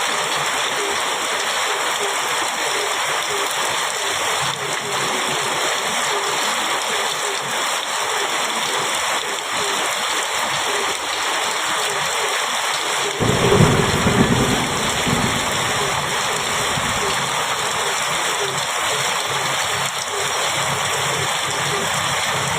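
Heavy rain falling steadily on a metal roof, with a deep roll of thunder a little past halfway that peaks briefly and then fades over a few seconds.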